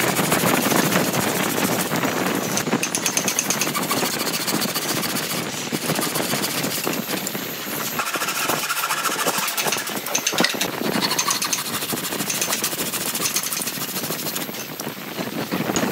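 Hand saw cutting through stacked softwood boards: a steady run of quick rasping back-and-forth strokes.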